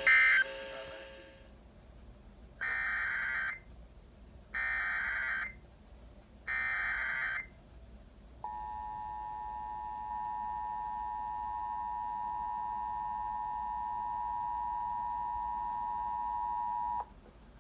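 Emergency Alert System signalling: a brief data burst at the start, then three roughly one-second bursts of warbling EAS header data tones about a second apart. These are followed by the two-tone EAS attention signal, held steady for about eight and a half seconds and cut off abruptly near the end.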